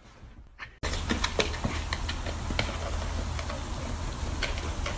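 Steady outdoor background noise with a low rumble that starts abruptly about a second in, with scattered light ticks and taps.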